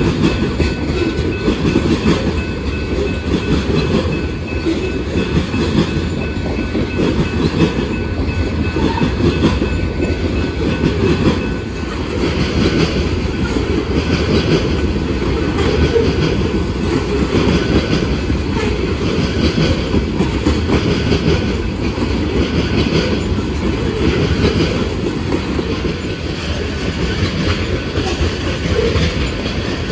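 Freight train rolling past at close range: a loud, steady low rolling noise of cars and wheels on the rails, with no horn.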